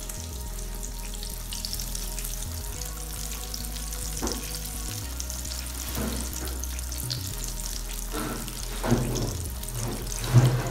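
Egg-coated chicken shami kababs shallow-frying in hot oil, with steady sizzling and crackling. A few short knocks come about four seconds in and twice near the end, the last the loudest.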